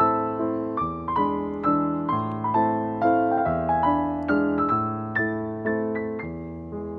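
Background piano music: single struck notes about twice a second over low notes that change every second or two.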